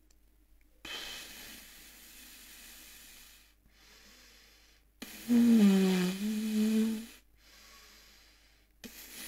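Air blown through relaxed lips as a hissing rush. About five seconds in comes a loud free lip buzz with no mouthpiece: one low steady pitch that dips slightly in the middle and holds for about two seconds. This is a brass player's breath attack, air through the embouchure first and then the lips set buzzing. Near the end a fresh rush of air starts.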